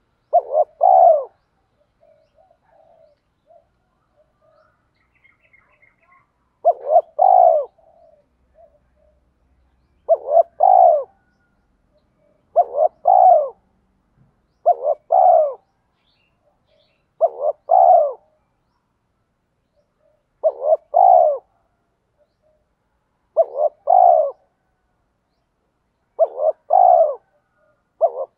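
Spotted dove cooing. About ten short phrases, each a couple of quick notes and a longer one, repeat every two to three seconds, with a pause of about five seconds soon after the start.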